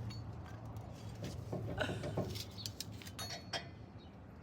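Light metallic clicks and clinks of brake parts and tools being handled, several small taps scattered through, over a steady low hum.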